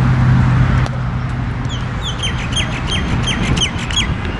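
A bird calling a quick run of about a dozen short, sharply falling notes, about five a second, starting about halfway in. A low steady hum with a rush of noise drops away about a second in.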